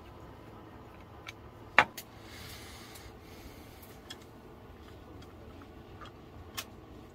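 Scattered clicks and taps from handling an LED lantern and its shade as they are fitted together and hung on a lamp stand; the sharpest click comes just under two seconds in, followed by a short rustle.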